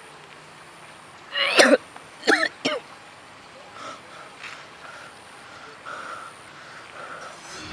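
A young man coughing three times in quick succession: one longer cough about a second and a half in, then two shorter ones.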